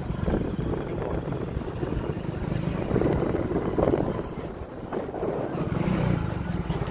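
Motorcycle engine running steadily while riding, with wind noise on the microphone.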